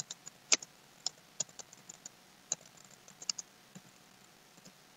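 Typing on a computer keyboard: irregular, separate keystroke clicks, a few a second with short pauses, the loudest about half a second in.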